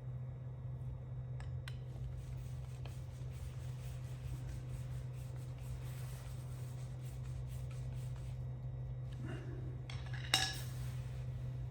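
Small metal carburetor parts and hand tools being handled on a workbench: light clicks and rubbing, with a sharp clink a little after ten seconds in. A steady low hum runs underneath.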